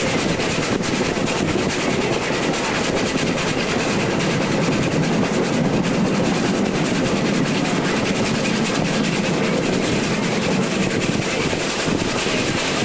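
Train running, heard from aboard an open passenger wagon hauled by a small steam tank locomotive: a steady rumble of wheels on the rails with faint clicks.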